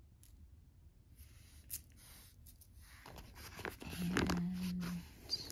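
A paper shipping mailer rustling and crinkling as a hand digs inside it for the item, after a few small clicks; the rustling grows louder about three seconds in, with a short low hum for about a second near the end.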